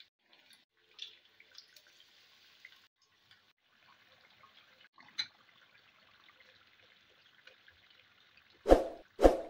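Potato wedges sizzling in hot frying oil, a steady hiss with small crackling pops. Near the end, metal utensils (a wire mesh skimmer and tongs) knock twice against the pan.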